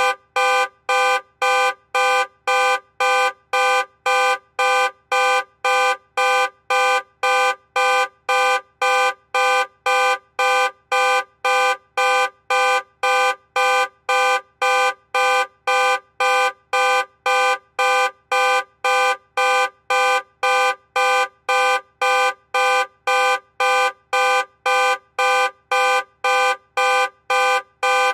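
Car alarm sounding in a steady, even pulse of loud horn-like honks, about two a second, without a break.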